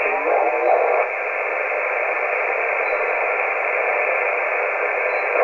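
11-metre CB radio receiver hissing with steady static between transmissions, its sound cut off below about 200 Hz and above about 3 kHz; a garbled scrap of a voice comes through in the first second.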